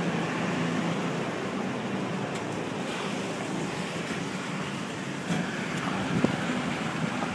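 Steady road noise inside a moving vehicle's cabin: tyres hissing on the road over a low engine hum, with a couple of faint knocks in the second half.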